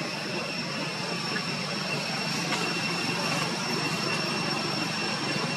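Steady outdoor drone: a constant high-pitched insect whine over an even rushing background noise.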